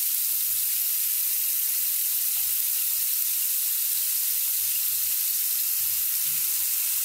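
Yogurt-marinated chicken pieces sizzling steadily as they shallow-fry in hot refined oil in a nonstick frying pan.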